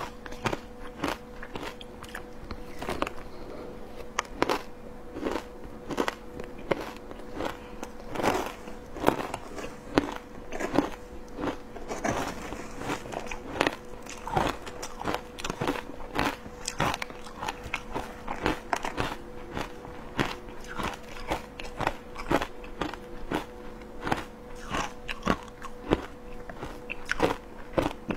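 Close-miked crunching and chewing of coarse matcha shaved ice: a dense run of sharp, irregular crackles, with a faint steady hum underneath.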